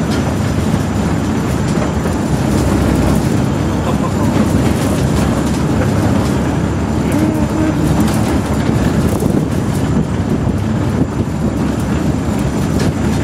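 Construction elevator climbing a bridge tower, heard from inside the car: a loud, steady mechanical rumble that runs on without a break.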